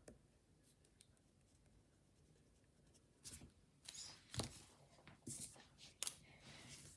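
Near silence for about three seconds, then a handful of short, faint scratches and taps from pens being used and handled on paper.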